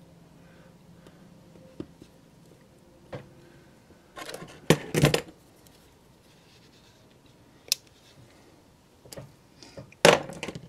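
Small hand tools, a wire cutter among them, clicking and clattering as they are handled on a workbench. There are scattered sharp clicks, and louder bursts of clatter about four to five seconds in and again near the end.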